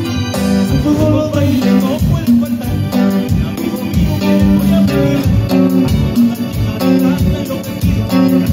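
Live band playing an upbeat Latin song with electric guitars, drum kit and keyboard, the drums keeping a steady beat.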